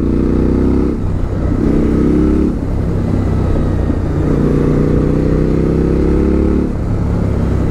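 Suzuki V-Strom 1050XT's V-twin engine running on the move, its pitch climbing in stretches and easing off briefly about a second in, at about two and a half seconds, and near the end.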